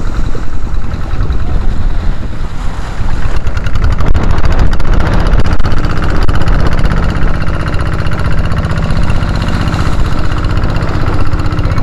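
Outboard motor of a small outrigger fishing boat running steadily under way, with water rushing and splashing along the hull and outrigger float in a choppy sea.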